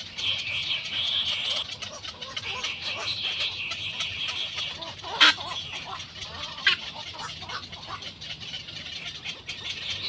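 Egret chicks in the nest giving rapid clucking begging calls. A sharp louder call comes about five seconds in, and a shorter one a second and a half later.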